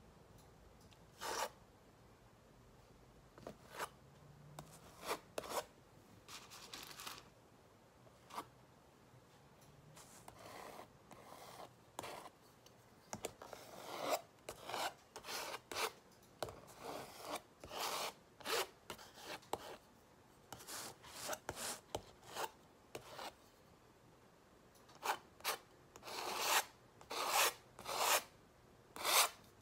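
Palette knife scraping and spreading acrylic paint across a canvas pad: short, irregular rasping strokes, coming in quicker runs near the end.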